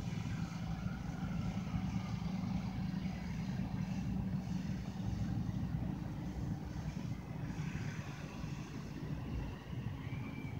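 A vehicle engine running steadily at idle, a low even hum.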